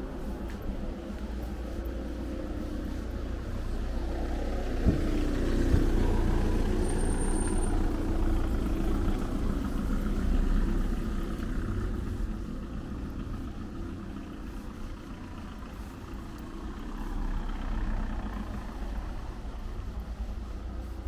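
A car passes slowly at close range. Its engine and tyre noise swells about four seconds in, stays loudest for several seconds, then fades away. Two sharp knocks come as it draws near.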